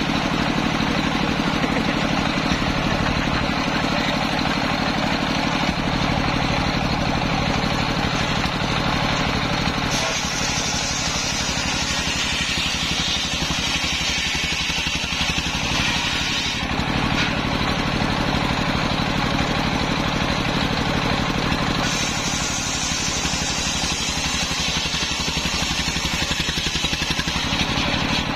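Circular saw bench, belt-driven by a stationary engine, running steadily as a waru log is sawn. Twice, about ten seconds in and again about twenty-two seconds in, the blade bites into the wood and a harsher, higher cutting sound rides over the engine for about six seconds.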